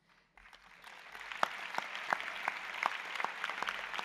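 Large audience applauding, rising from a few claps to full, steady applause within the first second.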